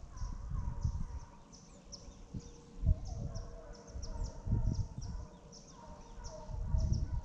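A pack of hunting dogs baying in the distance, short repeated calls that mean the dogs have picked up a scent, over steady high chirping of birds or insects. Low rumbles come and go, with a sharp thump about three seconds in.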